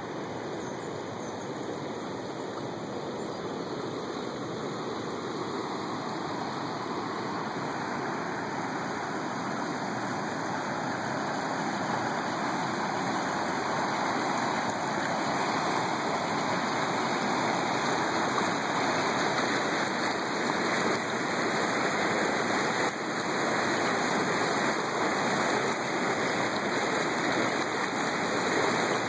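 Floodwater rushing down a swollen river and pouring over a low dam: a steady rush of water that grows gradually louder as the falls over the dam come nearer.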